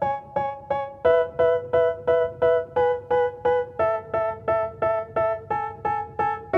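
Background music: a keyboard riff repeating short chords about three times a second, its harmony shifting twice.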